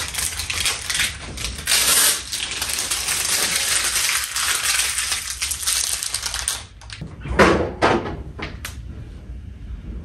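Protective plastic film being peeled off a new refrigerator: a continuous crackling, tearing rustle that stops suddenly about seven seconds in, followed by a few short crinkles.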